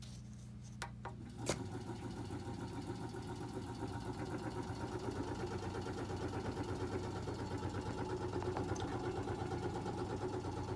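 VWR DVX-2500 multi-tube vortexer: a few clicks about a second in, then its motor starts and the empty platform shakes with a rapid, even rattle at a set speed of 500, building up over the first few seconds and then holding steady.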